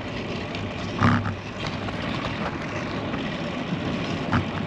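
Steady rush of wind and tyre noise from a road bicycle being ridden, heard on a bike-mounted action camera, with one short louder bump about a second in.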